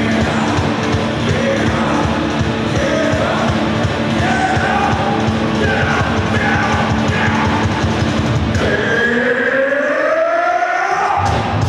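Rock band music with singing. About nine seconds in, the bass and drums drop out for about two seconds under a rising, sliding line, then the full band comes back in.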